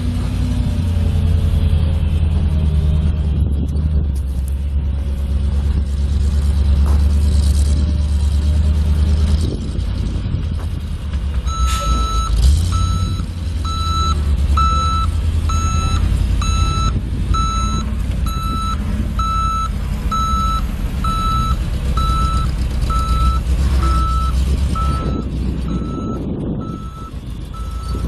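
Ford F800 truck's 6.1L V8 gas engine running steadily. About eleven seconds in, its backup alarm starts beeping about once a second as the truck reverses, with a short loud burst just after the beeping begins.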